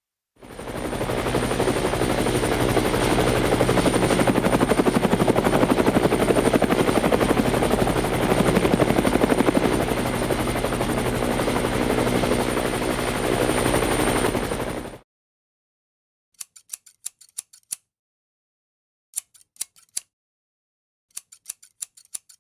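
A motor or engine running loudly and steadily with a rapid, even pulse and a high steady whine. It cuts off suddenly about 15 seconds in, and three short bursts of sharp, high clicks follow, each a handful of ticks.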